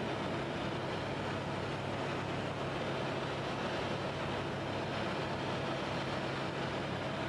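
Steady drone of an aircraft in flight, heard from on board, an even rushing noise with a constant hum that holds without change.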